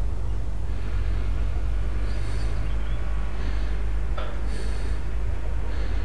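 A person breathing through the nose close to a microphone, soft airy breaths recurring about every second or so over a steady low hum.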